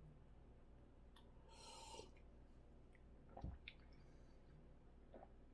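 Near silence broken by a short, faint slurping sip of hot green tea from a cup about a second and a half in, then a soft knock and a few light clicks about three and a half seconds in.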